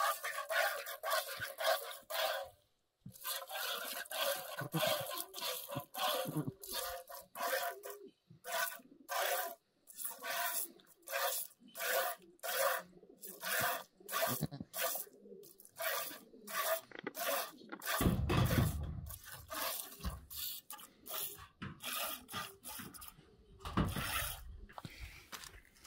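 Goat being milked by hand into a metal bowl: short squirts of milk hissing into the bowl in a steady rhythm, about two a second. A brief low rumble comes about eighteen seconds in and again near the end.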